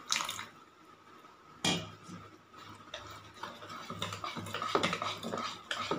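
Wire whisk clicking and scraping against a ceramic bowl as cake batter is mixed. A sharp knock comes a little under two seconds in, and quick, irregular clicks follow through the second half.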